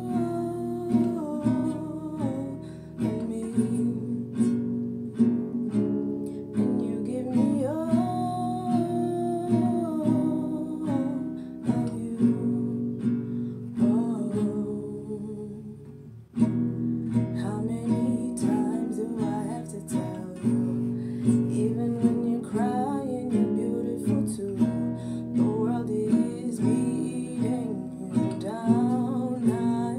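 Acoustic guitar strummed as accompaniment with a woman singing over it. About sixteen seconds in, the sound fades almost away and then comes back abruptly.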